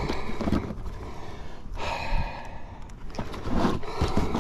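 A man breathing hard in gasps and sighs, out of breath with excitement, over a low rumble with a few knocks.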